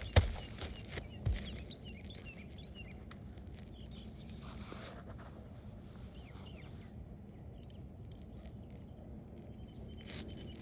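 Songbirds chirping and singing in short repeated phrases, with a sharp knock just after the start and a smaller knock about a second later.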